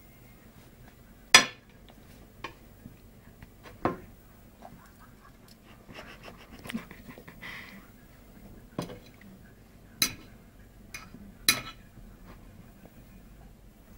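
Metal knife and fork clinking and scraping on a plate while cutting meat: about six separate sharp clinks a second or two apart, the loudest about a second in.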